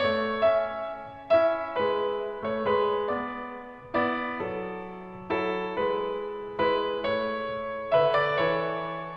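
Background piano music: slow, gentle notes and chords struck one after another and left to ring out.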